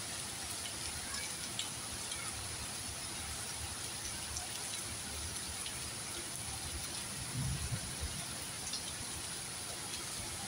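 Steady rain falling on trees and foliage: an even hiss with faint scattered drop ticks. A brief low rumble comes about three-quarters of the way through.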